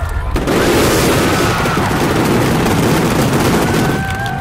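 Aerial fireworks barrage: a dense, rapid run of shell bursts that merges into one continuous din and thins out near the end.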